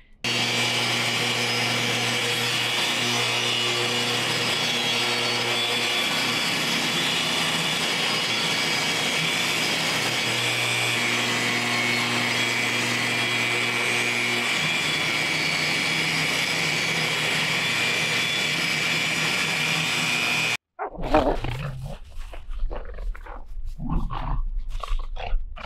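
A table saw runs steadily for about twenty seconds, cutting stained trim boards, then stops abruptly. Dogs then growl and scuffle as they play-fight.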